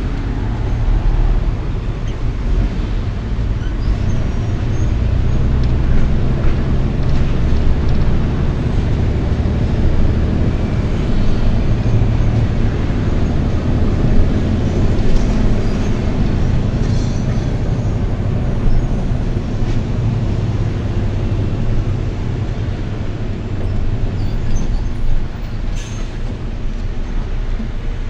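Steady low engine rumble and road noise of a vehicle moving in traffic, with a brief click near the end.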